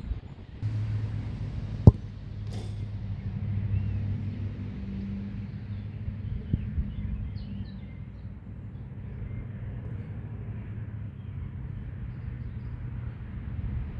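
A steady low engine hum in the background, with one sharp knock about two seconds in and faint bird chirps.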